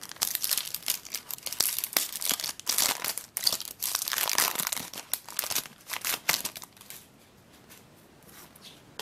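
A foil trading-card booster pack being torn open and crumpled by hand, the wrapper crinkling and crackling. The crinkling stops about seven seconds in as the cards come out.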